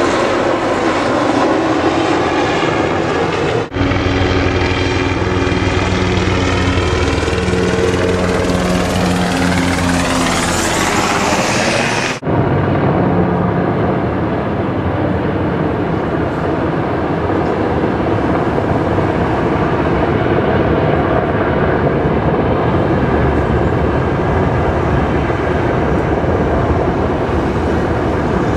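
Low-flying military helicopters overhead: loud, continuous rotor and engine noise. It breaks off abruptly twice, about four and about twelve seconds in, and is duller and steadier after the second break.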